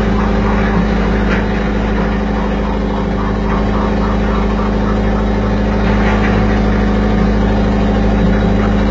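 Fishing boat's engine running steadily at idle, a low drone with a strong even hum.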